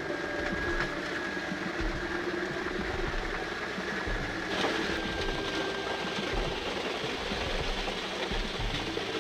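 Wood-processing machine running steadily, its engine or hydraulics giving a constant mechanical noise with a high whine, and a single sharp knock about halfway through.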